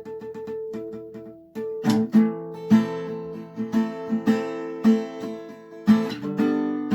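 Acoustic guitar: light picked notes at first, then strummed chords from about two seconds in, with accented strokes about twice a second.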